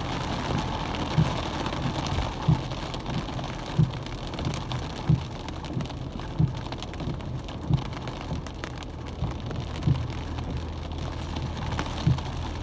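Heavy rain drumming on a car's windshield and roof, heard inside the cabin over a steady low hum. A soft thump comes about every second and a quarter, the beat of the windshield wipers.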